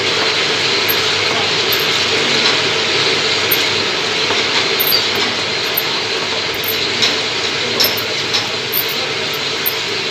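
Lathe machine running on a motor fan part, a steady mechanical whir with scattered sharp ticks in the second half.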